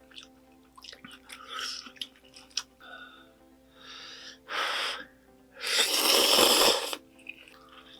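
Close-miked eating of spicy squid jjamppong ramen: small wet clicks of chewing, then two loud slurps of noodles, the second lasting about a second. A faint steady hum lies underneath.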